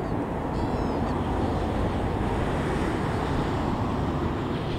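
Steady rushing noise of wind on the microphone, with the NG130 Beyer-Garratt steam locomotive running underneath it, still far off and approaching. A couple of faint high chirps come about a second in.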